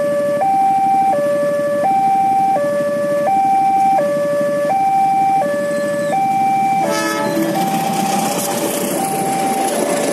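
Railway level-crossing warning alarm from the loudspeaker on the crossing post: an electronic two-tone chime, alternating high and low, switching about every 0.7 s. About seven seconds in, a diesel locomotive hauling passenger coaches reaches the crossing, and its running and wheel noise swell up under the alarm.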